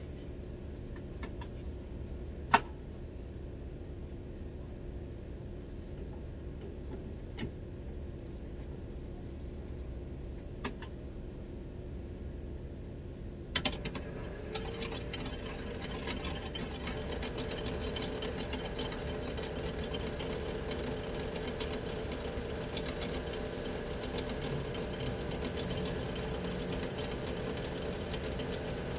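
Metal lathe at rest with a low hum and a few sharp clicks. About halfway through it is switched on: the four-jaw chuck spins up with a briefly rising tone and then runs steadily.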